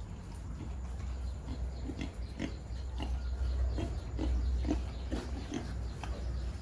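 Group of two-month-old pigs grunting in short, repeated grunts about every half second, over a low steady rumble.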